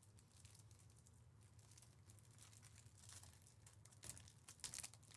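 Near silence with faint rustling of Panini Mosaic trading cards being handled and flipped through by hand, with a few short crinkles near the end.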